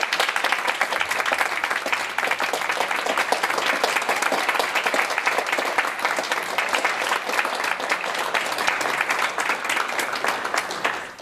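Audience applauding steadily with dense clapping at the close of an orchestra's performance.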